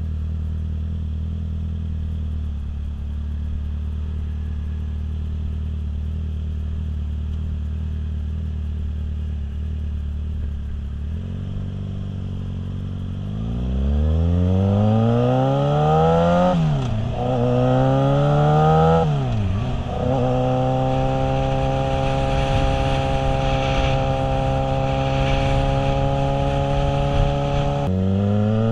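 Yamaha motorcycle engine idling steadily, then pulling away about 13 seconds in. It revs up through two gear changes, each rise ending in a sharp drop in pitch. It then holds a steady cruising note, and near the end the pitch dips and climbs again.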